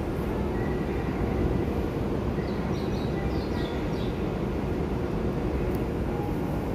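Steady low rumble and hum of a running station escalator, mixed with platform background noise; a few faint high chirps come through around the middle.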